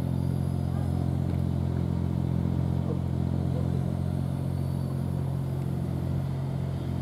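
Steady low hum of an idling engine, even in level with no revving.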